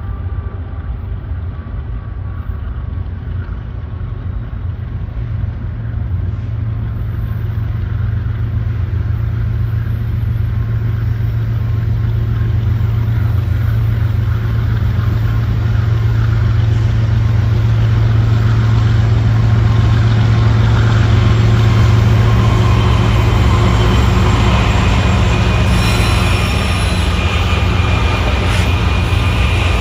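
BNSF freight train's diesel locomotives approaching and drawing alongside, a steady low engine drone growing louder as the units come close.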